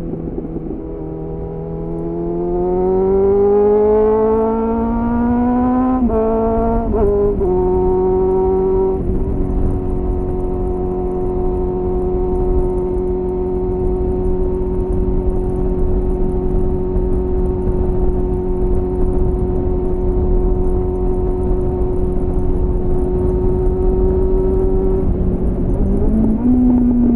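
2001 Suzuki GSF 600 Bandit's inline-four engine, heard onboard through an aftermarket slip-on exhaust with a home-made dB killer. It revs up over about five seconds, changes pitch in a few quick steps like gear changes, then holds steady revs for a long stretch before a short rise and fall near the end. Low wind and road rumble run underneath.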